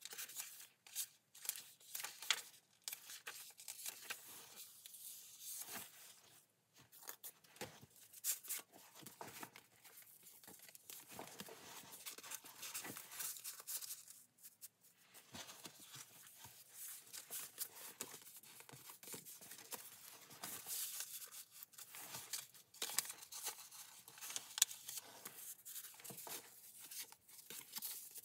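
Paper pages of a handmade junk journal being turned and handled: many short, irregular rustles and flicks of paper, with tags and inserts slid out of pockets.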